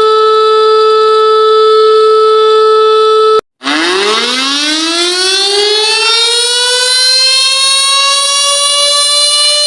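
A loud, steady siren tone cuts off abruptly about three and a half seconds in. After a short gap, a civil defense siren winds up, its pitch rising steeply at first and then levelling off into a steady wail.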